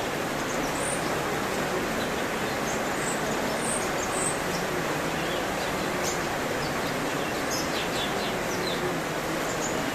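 Cucak cungkok songbird singing: short, scattered high chirps and whistles over a steady background hiss.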